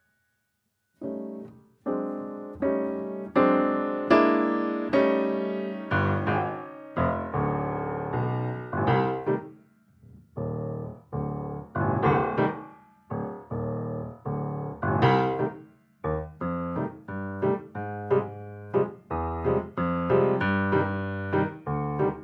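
Solo piano music, chords and melody notes struck and left to ring and die away, starting about a second in.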